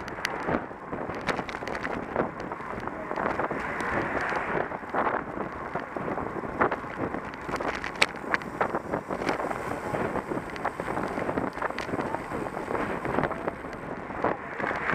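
Wind buffeting a bike-mounted action camera's microphone during a group road ride, over the hiss of road-bike tyres on asphalt, with many short rattling clicks as the camera shakes over bumps, a sharper one about halfway through.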